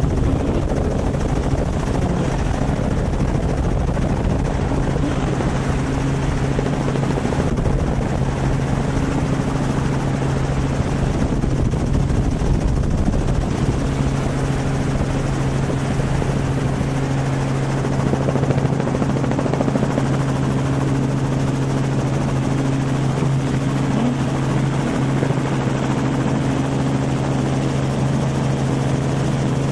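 Helicopter in steady flight, heard from on board: rotor and engine noise with an even low hum that holds one pitch.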